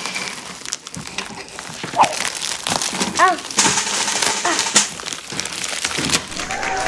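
Clear plastic bag crinkling and crackling as it is squeezed and pulled open by hand.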